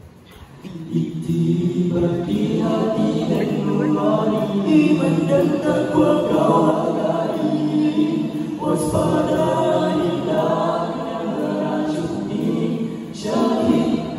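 A nasyid group of teenage boys singing in close harmony through microphones and a PA. The voices swell in during the first two seconds and break off briefly twice between phrases, near the middle and again near the end.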